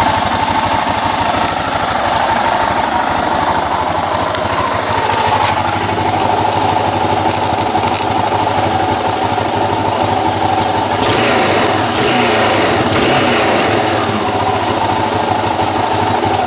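Yamaha XT660Z / 3YF Ténéré single-cylinder engine running steadily with a clattering rattle from the primary drive area.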